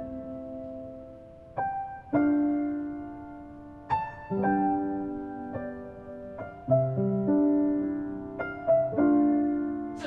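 Solo piano playing slowly: single notes and chords struck every second or two, each left to ring and fade.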